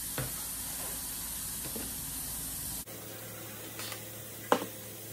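Light metal clicks and one sharp clink about four and a half seconds in as engine main bearing shells and caps are set down on a steel workbench, over a steady background hiss.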